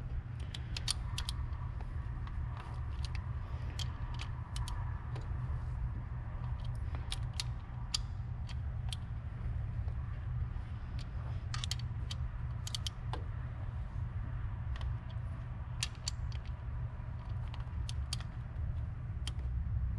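Ratcheting torque wrench clicking in short, irregular runs as the injector hold-down bolts are taken down in quarter turns, with a steady low hum underneath.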